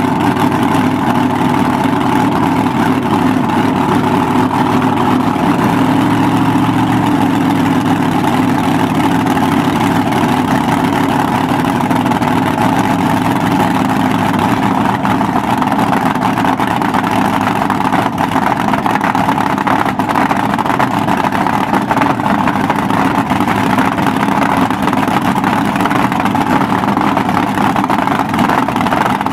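Supercharged nitromethane-burning V8 of a front-engine dragster idling steadily in a loud cackle.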